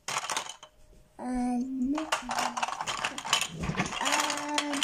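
Plastic Duplo bricks clattering and clicking against each other as a hand rummages through a plastic storage tub of bricks. A child's voice holds a drawn-out hummed note twice, once about a second in and again near the end.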